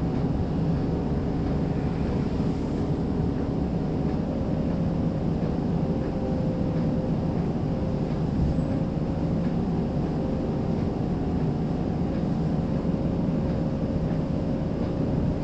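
Toronto streetcar running between stops, heard from inside the car: a steady rumble of the wheels on the rails with a faint steady motor whine.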